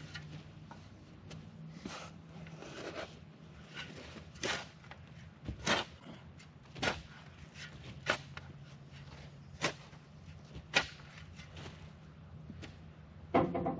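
Sharp knocks and clatters of metal parts being handled while a wheel is fitted back onto a portable sawmill's trailer, about nine at uneven intervals over a steady low hum.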